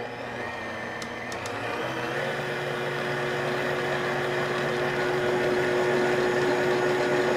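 Electric stand mixer with a dough hook running, mixing flour into cookie dough. The motor is turned up in steps, once near the start and again about two seconds in, and the hum grows slowly louder.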